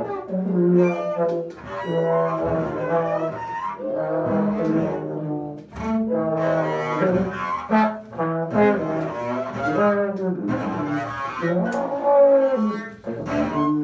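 Freely improvised duo of double bass played with the bow and trombone with a mute held at its bell, playing shifting, wavering notes over a sustained low bass line.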